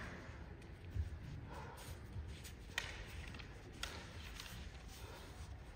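Quiet hall ambience during a kendo bout, with three faint, sharp taps about one, three and four seconds in.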